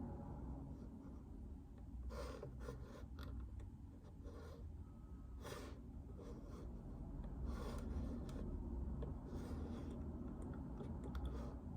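Occasional short, soft scratching and rubbing strokes, as of writing on paper at a desk, over a low steady hum.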